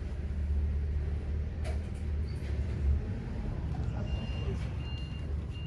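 A large vehicle's engine running with a steady low rumble, and a reversing alarm starting to beep about four seconds in.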